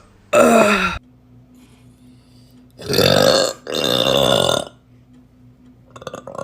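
A girl burping: a short burp that drops in pitch right at the start, then two long, loud burps back to back about three seconds in.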